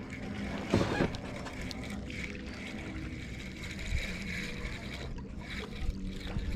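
Sound of a small fishing boat on the river: water moving against the hull and a low steady hum, with a brief louder noise just under a second in and a light knock about four seconds in.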